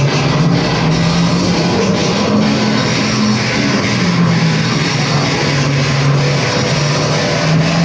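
Live noise-music performance: a loud, unbroken wall of distorted noise over a low droning tone that steps up and down between a few pitches every second or two.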